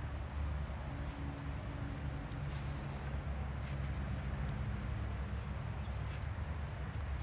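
Faint rustling and a few soft clicks of a braided cord being pulled and knotted by hand, over a steady low background rumble.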